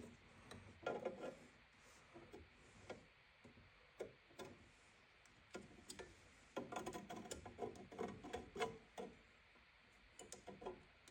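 Faint scattered clicks and small handling noises of hands fitting the wire connectors and hose onto a furnace pressure switch, in a cluster about a second in and a longer run from about six and a half seconds.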